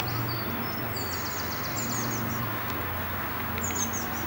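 Small birds chirping in short, high, quickly repeated calls, in a few brief bursts over a steady background hiss and low hum.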